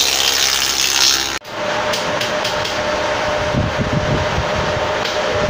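Spindle moulder cutting a wooden board for about a second and a half, then stopping abruptly. A steady machine hum with a thin whine follows, with a few dull thuds in the middle.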